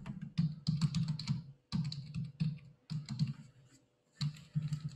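Typing on a computer keyboard: keystrokes in several quick runs separated by short pauses.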